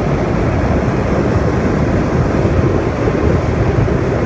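Jet ski running at speed over open water: loud, steady wind rush on the microphone mixed with the hull's water noise and the watercraft's engine.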